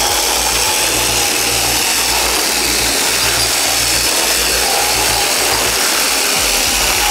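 Small electric motor of a Lego train whirring steadily with gear hiss as the train climbs an incline.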